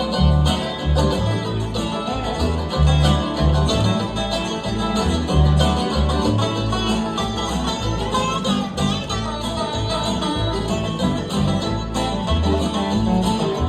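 Bluegrass band playing an instrumental break, with picked banjo and acoustic guitar over a steady bass line and no singing.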